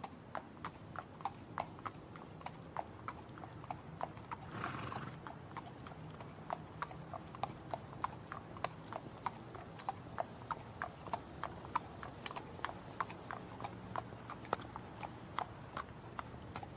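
Horse hooves striking the ground in a steady, even rhythm of about three beats a second. A brief rush of breathy sound comes about five seconds in.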